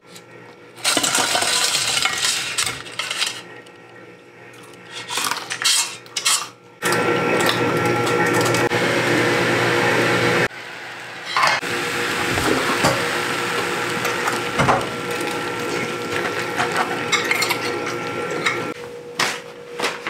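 Metal chopsticks and a lid clinking and scraping against a thin aluminium ramyeon pot, a few sharp clinks over a steady hiss, in short sections that start and stop abruptly.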